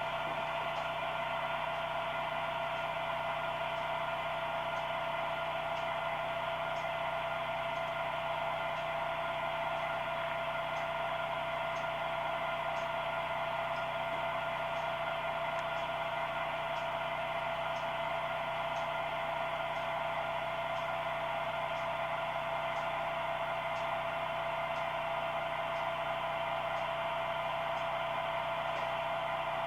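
HO-scale model train running steadily: an even mechanical hum with a strong steady tone, and faint clicks about once a second.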